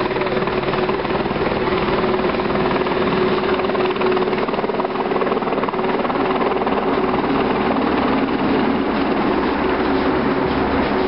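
Helicopter flying overhead: a steady, fast rotor beat with a constant engine tone.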